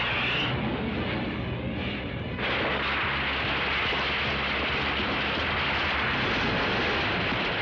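Sound effects of explosions and a building crashing down: a sudden, continuous crashing rumble that sets in about two and a half seconds in, after a quieter first stretch.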